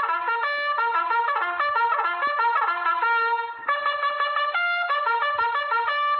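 A cartoon ringtone tune played in a trumpet-like brass tone: a quick, bouncy melody of short notes, with a brief quieter, sparser stretch about three seconds in.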